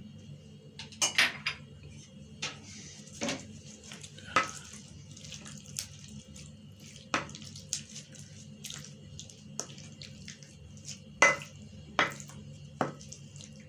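A spoon stirring yogurt sauce and spices into chicken pieces in a bowl. It makes irregular clinks against the bowl, a few of them ringing briefly, over a steady low hum.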